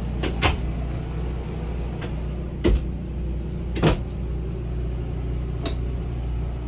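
Steady low hum of an RV air conditioner running, with a few sharp knocks and clicks: the loudest about half a second in, then again near three and near four seconds.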